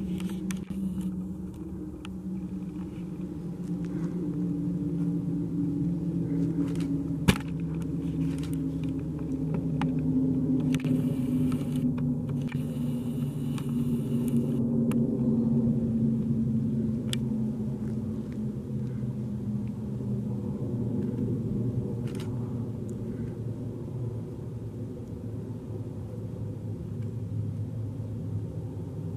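Low engine drone, steady, its pitch drifting slowly. There is a single sharp click about seven seconds in and a short stretch of hiss around eleven to fourteen seconds.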